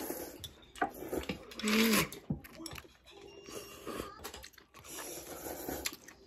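Noodles being slurped and chewed, with a loud slurp about two seconds in, and chopsticks clicking now and then against bowls.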